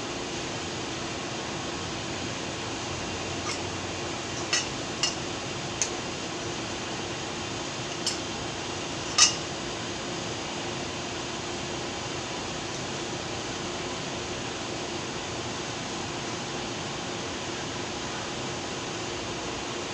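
A few sharp metallic clicks and clinks from parts of a vintage electric fan being handled during disassembly, the loudest about nine seconds in, over a steady hiss with a faint hum.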